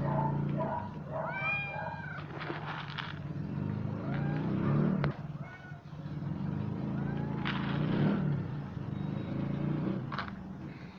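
Domestic cats meowing several times, the clearest short meows about a second and a half in, over a steady low hum, with scattered clicks and rattles from the wire cages.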